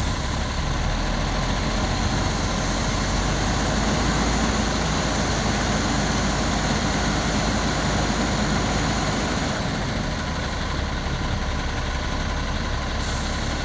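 Diesel engine of the Kiira Motors Kayoola coach running steadily, an even drone with no change in speed.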